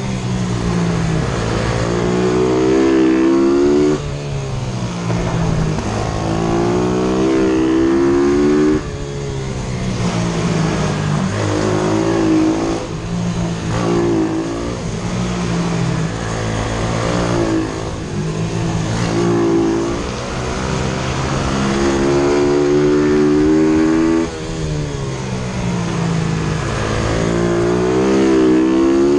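YCF F125 pit bike's single-cylinder four-stroke engine running hard. It revs up rising in pitch, then drops suddenly as the throttle is shut, again and again: three long pulls and a run of shorter ones through the tight corners.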